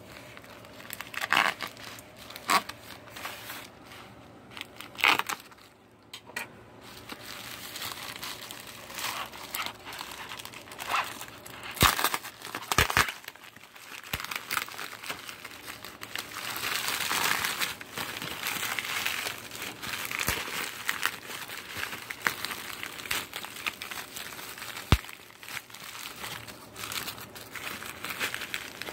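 Plastic bubble mailer being opened by hand: irregular crinkling and crackling of the plastic with scattered sharp clicks, and a longer stretch of steady crinkling a little past the middle.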